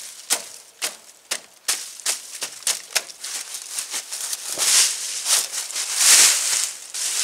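Dry fallen leaves crackling and crunching underfoot: a run of sharp, irregular crackles, then a few louder, hissier crunches in the second half.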